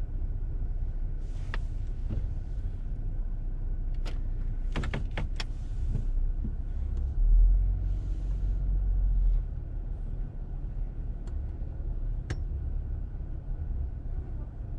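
A car idling, heard from inside the cabin as a steady low rumble. The rumble swells for about two seconds around the middle. A few light clicks and rustles sound inside the car.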